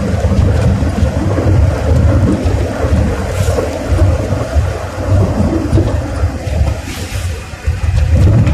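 Low, unsteady rumble of a car in motion, heard from inside the cabin: road and wind noise buffeting the microphone.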